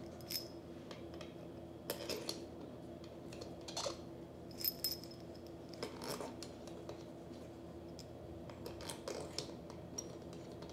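Light metal clinks and ticks as steel bolts are picked up and threaded by hand into a brass pressure washer pump manifold: a dozen or so small, irregular taps over a faint steady hum.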